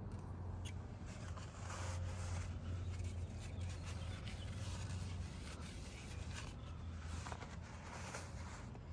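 Faint rustling and light clicks from hands and a paper towel being handled at a motorcycle, over a low steady hum; the engine is not yet running.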